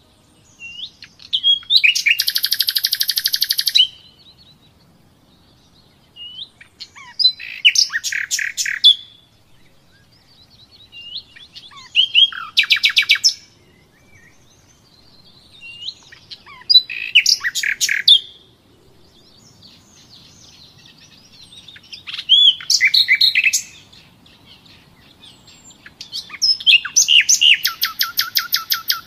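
A songbird singing: six phrases spaced about four to five seconds apart, each a few short chirps that run into a fast trill, with quiet gaps between.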